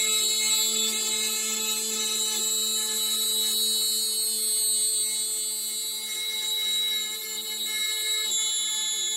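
CNC router spindle running with a steady high-pitched whine as the router mills a wooden serving board.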